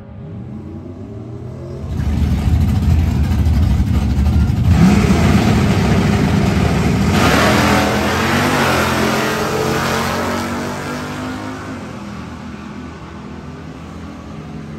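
Drag-race engines at wide-open throttle, including the LS-swapped S10 pickup's 6.0 L LQ4 V8, launching and accelerating down a quarter-mile strip. They come in loud about two seconds in, pitch sweeping up and down as they pull, then fade as the cars run away down the track.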